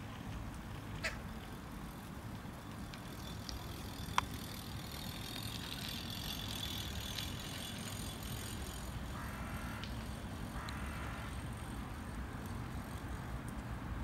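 Carrion crow hiccuping: a few sharp clicks and, later, two short raspy, quack-like sounds, over a steady low rumble. The uploader fears such spasms could be a sign of gapeworm in the windpipe.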